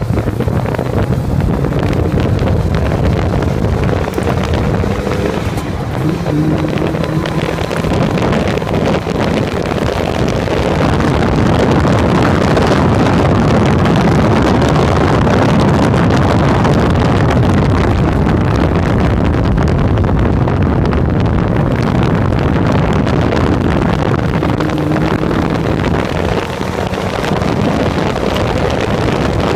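Engine of an open-cockpit Peugeot racing prototype running hard on track, getting louder as the car gathers speed, under heavy wind rush on the microphone.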